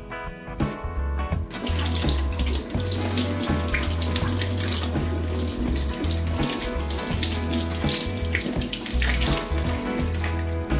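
Kitchen mixer tap running into a stainless steel sink as an aubergine is rinsed under the stream; the water comes on about a second and a half in and runs steadily, splashing off the hands and vegetable.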